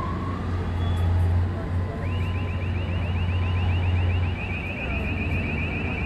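Machine warning alarm: a fast run of short rising electronic chirps, about six a second, starting about two seconds in, over the steady low rumble of a container straddle carrier's diesel engine.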